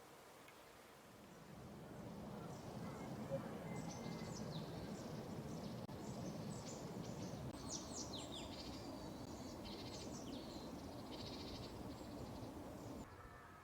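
Small birds chirping and calling with quick high falling notes over a steady outdoor hush; the sound cuts off abruptly near the end.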